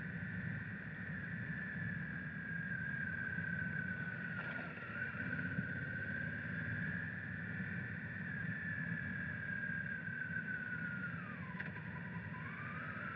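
Honda Africa Twin CRF1000's parallel-twin engine running under way, a steady whine that drifts slowly in pitch, then dips near the end and climbs again as the bike slows and picks up speed, over a steady low rumble.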